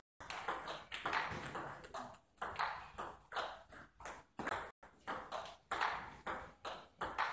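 Table tennis ball in a fast rally, clicking off the table and the players' bats in a quick, steady run of sharp clicks, about three to four a second.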